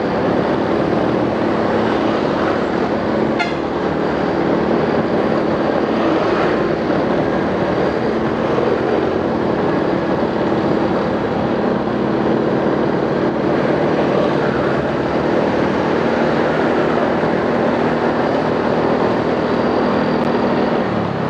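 Small motorcycle engine running steadily at cruising speed, heard from the rider's seat, with a constant rush of wind and road noise over it.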